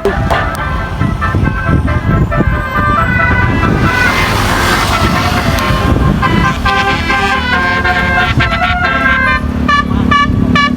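Bus telolet horn playing a run of musical notes that step from pitch to pitch over a large bus engine running. A noisy rush about four to six seconds in, then quick short toots near the end.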